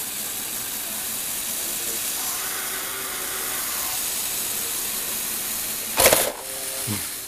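Small electric motors and plastic gears whirring steadily as a Lego Technic rig tilts and turns a toy RC truck. About six seconds in comes a loud clatter as the truck tumbles over onto the wooden tabletop, then a lighter knock or two.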